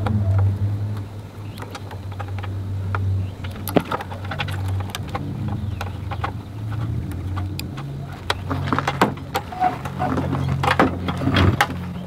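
Hands handling wires and plastic connectors in a scooter's handlebar wiring, making scattered clicks and light knocks that come more often from about four seconds in, over a steady low hum.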